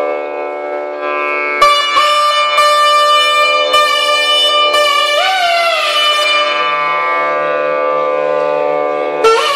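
Nadhaswaram playing a slow, ornamented melody in raga Behag over a steady shruti box drone. A long held note gives way, about a second and a half in, to a phrase of changing notes with a sliding rise in pitch around the middle, and a new phrase starts near the end.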